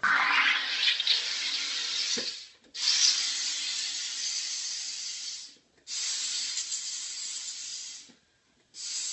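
SodaStream machine injecting CO2 into a bottle of wine: loud hissing in long blasts of two to three seconds each, broken by short gaps, with a fourth blast starting near the end.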